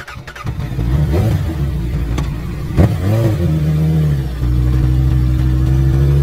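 A vehicle engine starting and revving in short swoops, with a sharp crack about three seconds in, then running steadily with its pitch climbing slowly near the end.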